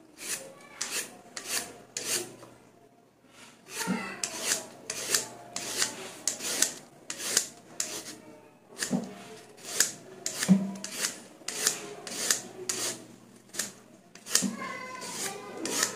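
Y-shaped vegetable peeler shaving a raw carrot into ribbons: quick rasping strokes, about two to three a second, pausing briefly twice.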